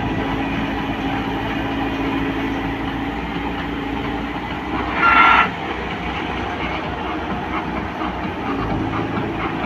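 Hyundai wheeled excavator's diesel engine running steadily as it digs and dumps sand, with a brief loud high-pitched sound about five seconds in.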